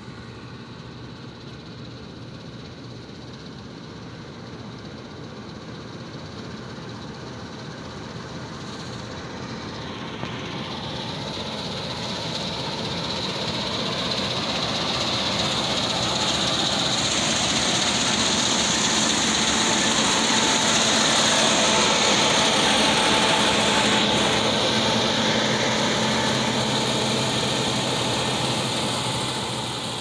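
Sperry-New Holland combine harvester running as it cuts rice: a steady din of engine and threshing machinery with a high whine. It grows louder as the machine comes close, is loudest a little past the middle, and fades near the end as it moves away.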